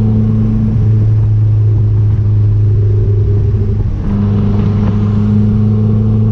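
Chrysler Conquest's turbocharged G54B four-cylinder engine running steadily while driving, a steady engine drone whose note dips briefly about four seconds in and then picks up again.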